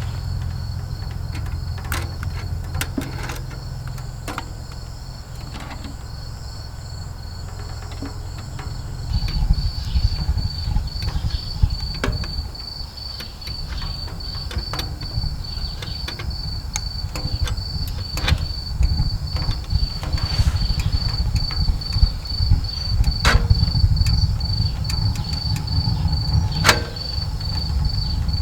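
Wood fire burning in a small camping wood stove: a low rumble that grows louder about nine seconds in, with scattered sharp crackles and pops from the burning wood. A cricket chirps steadily in quick regular pulses over it.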